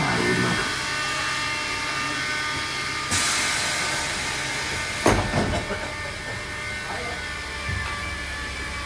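Inside a Ganz-Mávag M1 metro car: a steady electrical hum with several fixed tones, a burst of hiss about three seconds in, and a sharp clunk about five seconds in.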